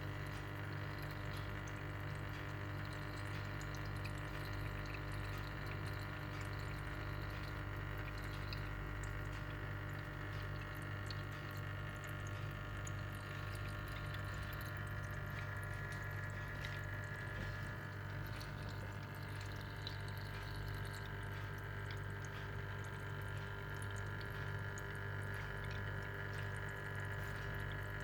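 Homemade water fountain running: water trickling and dripping steadily, over the steady low hum of its pump.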